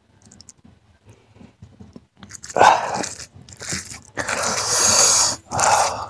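Close-miked eating of chicken and egg curry with rice: after a couple of seconds of faint small clicks, loud wet bites and chewing come in bursts, the longest about two-thirds of the way in.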